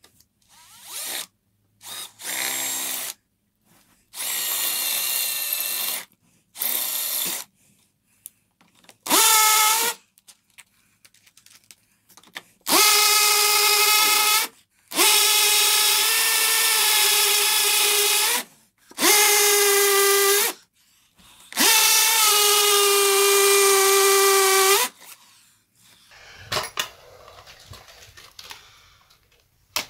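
Cordless drill with a masonry bit boring a wall-plug hole into masonry, run in repeated start-stop bursts. Its motor gives a steady whine, with short, lighter bursts at first and then longer, louder runs of one to three seconds each until about 25 seconds in.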